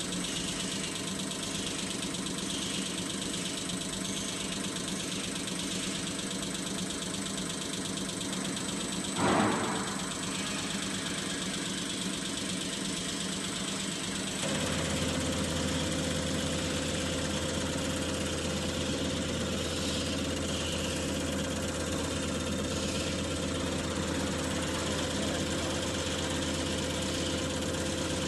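CR708 common rail test bench running steadily as it holds rail pressure for a Bosch injector's leak test. A short loud rush of noise comes about nine seconds in. About halfway through, the bench switches to its warm-up stage and the sound steps up to a louder steady hum with a steady whining tone over it.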